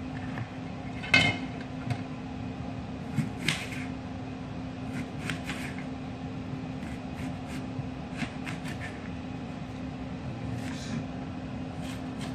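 Knife cutting a peeled onion against a plastic cutting board, with scattered light taps and knocks and one sharper knock about a second in, over a steady low hum.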